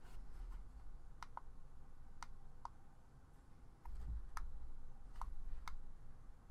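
Small push buttons on a KooPor Mini vape box mod clicking, about eight separate presses at uneven spacing, as its temperature-control settings are stepped through. Low handling bumps from the hands on the mod sit underneath.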